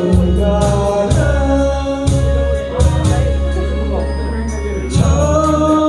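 A singer singing a Korean popular song over backing music with bass and drums, holding long notes, with the voice dropping out for a short instrumental stretch about two seconds in before coming back near the end.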